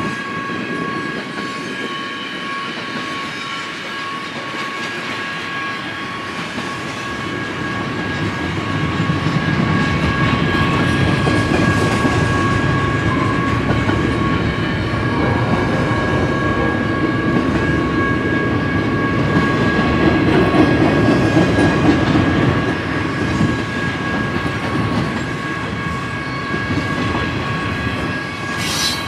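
Double-stack intermodal container train rolling past: steady rumble and clatter of wellcar wheels on the rails, louder from about a third of the way in, with a steady high whine running through it. A brief sharp screech or clank sounds near the end.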